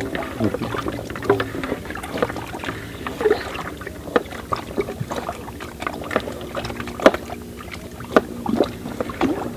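Kitchen knife chopping red onion on a wooden cutting board: sharp, irregular knocks of the blade against the board, a few a second.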